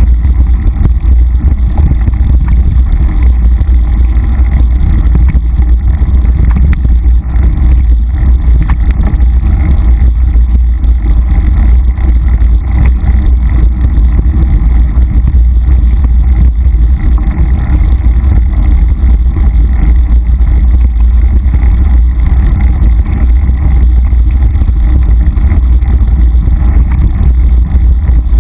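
Loud, steady rumble of wind buffeting and trail vibration on the microphone of a camera riding along on a mountain bike over rough dirt singletrack, with no separate distinct sounds standing out.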